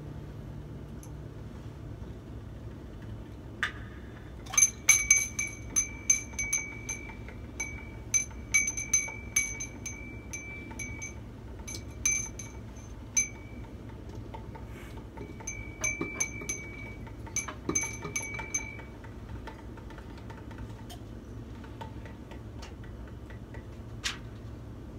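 A small chime tinkling in quick, irregular strikes that all ring at the same bright, high pitch. It starts about four seconds in, thins out and stops after about nineteen seconds, and one last strike comes near the end.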